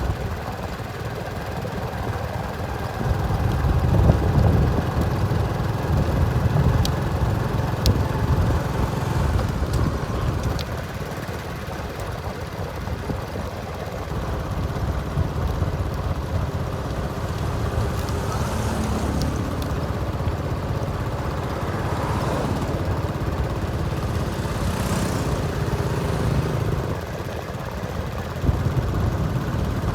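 Diesel engines of road-paving machinery running with a steady low rumble, swelling a little about four seconds in.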